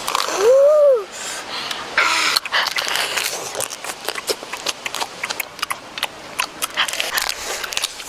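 Close-up eating sounds of cooked crab: many sharp cracks of shell being bitten, with sucking, slurping and smacking of lips. It opens with a short hummed voice sound that rises and falls in pitch.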